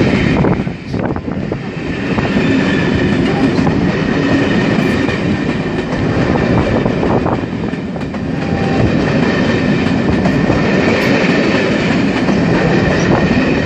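Railtour passenger coaches rolling past close by as the train pulls out, wheels clicking over rail joints under a steady rumble.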